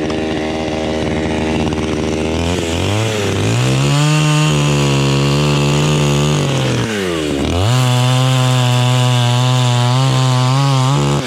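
Himax chainsaw running, revved up about three seconds in and held at high revs while cutting through a coconut palm trunk, dropping briefly about seven seconds in and revving up again.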